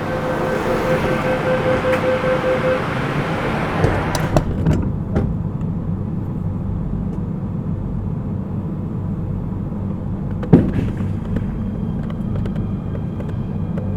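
MTR K-Train at a station stop: a rapid beeping tone sounds for the first few seconds, then the doors shut with a few knocks and thuds, a single loud clunk comes about ten seconds in, and a faint rising whine of the traction motors begins near the end as the train starts off.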